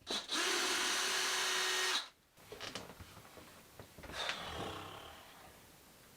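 Power drill with a screwdriver bit running steadily for about two seconds, backing screws out of the wall, then stopping. Light knocks and a short metallic clink follow as the screws and shelf hardware are handled.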